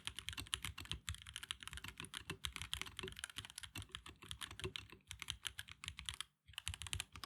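Fast typing on an Epomaker EK68 mechanical keyboard: a dense run of key clicks, with a brief pause near the end before a last burst.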